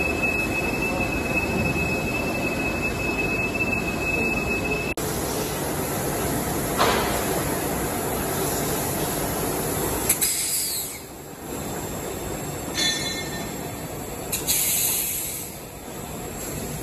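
Machine-shop noise: metal-working machine tools running steadily, changing abruptly a few times, with a couple of short high-pitched metallic squeals in the second half.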